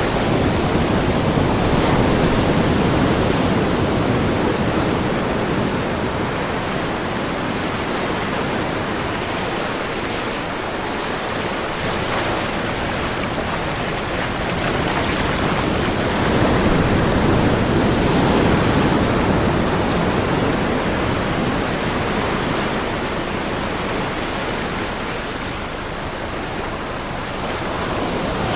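Ocean surf: a continuous wash of waves breaking, swelling louder and easing off over several seconds at a time.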